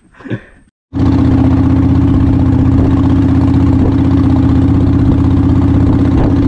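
A small wooden fishing boat's engine running steadily under way, loud and close, with an even, unchanging hum. It comes in abruptly about a second in.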